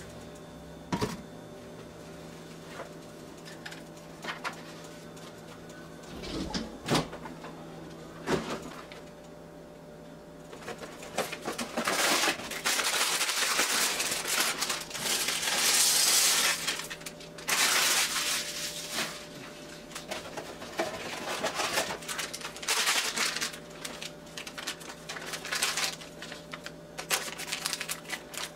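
Kitchen handling noises at the stove: a few knocks, then from about halfway a long stretch of loud rustling and rattling as dry egg noodles and their packaging are handled and poured into a skillet of milk and browned meat. A faint steady hum sits underneath.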